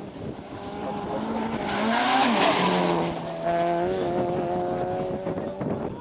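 Rally car passing at speed with its engine revving hard. The engine note rises to its loudest about two seconds in and drops in pitch as the car goes by, then holds a steady high note after a short break about three seconds in, fading near the end.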